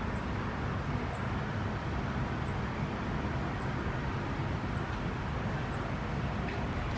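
Steady low background rumble outdoors, even throughout, with a faint high tick about once a second.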